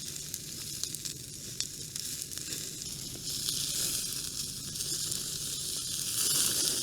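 Pieces of sirloin steak in olive oil sizzling on a hot gas grill, with scattered small pops of spattering fat; the sizzle grows louder about halfway through.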